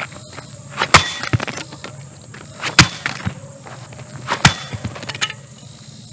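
A hair dryer being smashed: three hard blows, a little under two seconds apart, each followed by a few smaller knocks and rattles of breaking parts.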